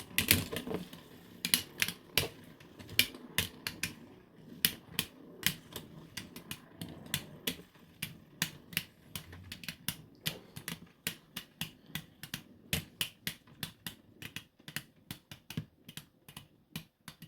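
Two 3D-printed Beyblade spinning tops clashing in a plastic stadium: a long run of sharp, irregular clicks, several a second, as the tops collide again and again.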